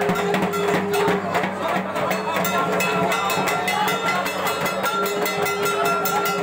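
Fast, steady rhythmic percussion, about five strokes a second, under the chatter of a large crowd.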